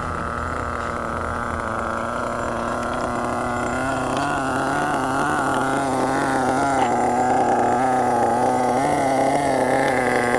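Small 4.6 cc glow-fuel (nitro) engine of an HPI Savage RC monster truck idling steadily. Its pitch wavers a little from about four seconds in, and it grows gradually louder.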